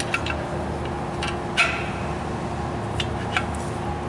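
About six short clicks and taps from hands and parts working at a disc brake caliper and pads, the loudest about one and a half seconds in, over a steady background hum.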